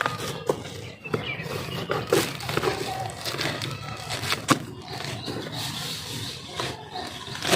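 Tripod packaging being handled and opened: scattered rustling, crinkling and sharp clicks and knocks.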